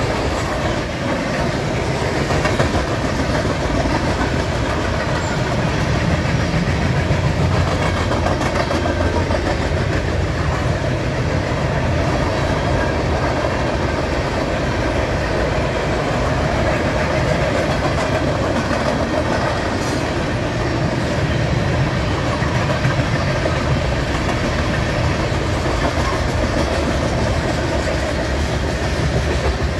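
Freight cars of a passing train rolling by close at hand: a steady rumble of steel wheels on the rails that runs on without a break.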